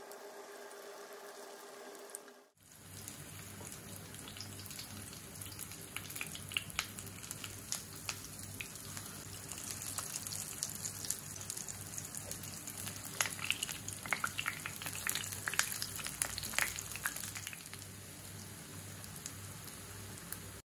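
Hot oil sizzling and crackling in a frying pan as breaded mashed-potato patties shallow-fry, with many sharp pops that come thickest in the middle. It opens with a couple of seconds of low steady hum before the sizzling cuts in.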